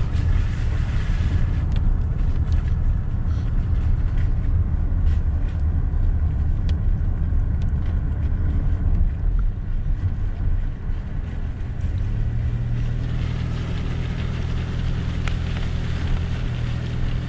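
Car engine and road noise heard from inside the cabin while driving slowly, a steady low hum. About twelve seconds in, the engine tone steps up and holds as a higher steady drone, with more hiss.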